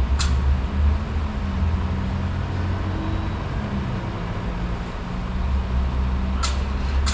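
A vehicle engine idling close by: a steady low rumble with a faint hum. Two brief hisses cut through it, one just after the start and one about six and a half seconds in.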